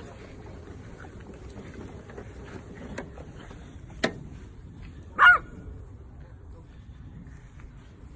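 A French bulldog puppy gives a single short, high-pitched bark about five seconds in.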